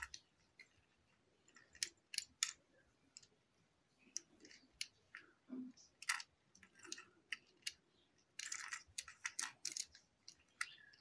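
Screwdriver clicking and scraping on the terminal screws of a socket in a plastic switch box: faint irregular ticks, with a short scrape about eight and a half seconds in.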